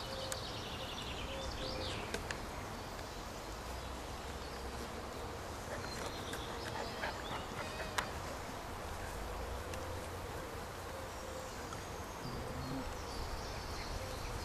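Steady outdoor background noise with faint high chirps near the start and end, and a few light clicks, one sharper about eight seconds in.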